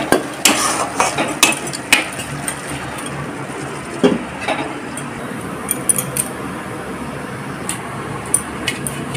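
Metal spatula scraping and clinking against a kadai while mushrooms are stirred, then a metal lid set down on the pan with a clank about four seconds in. After that it is quieter, with a few light clinks.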